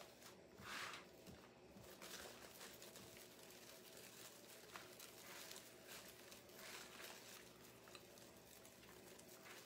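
Near silence with faint rustling and crinkling of ribbon and deco mesh being handled and tied onto a wreath frame, with one brief louder rustle about a second in.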